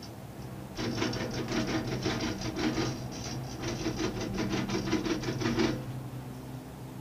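Cable car cabin passing through a tower's roller assembly: a rapid mechanical clatter of several knocks a second starts about a second in and stops near the end, over a steady low hum.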